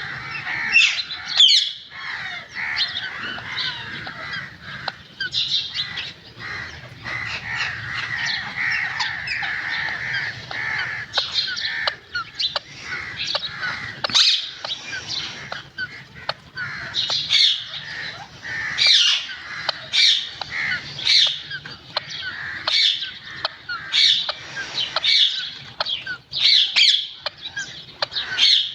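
Green ringneck parrot calling over and over, a long run of short, sharp, high calls and squawks that come faster in the second half.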